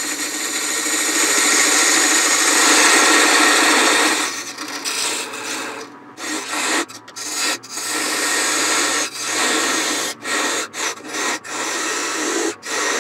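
A lathe tool cuts into a spinning wooden pepper mill blank, taking off the end tenon. For about four seconds it makes a steady shaving hiss, then it breaks into a run of short cuts with brief gaps between them.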